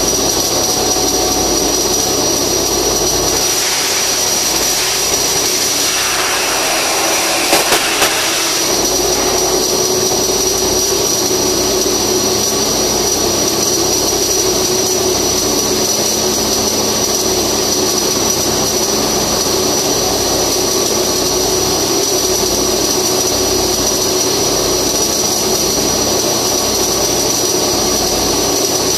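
Flux-cored arc welding: the welding arc gives a steady hiss, with a steady high whine under it. The sound changes briefly, with a few sharp clicks, about seven to eight seconds in.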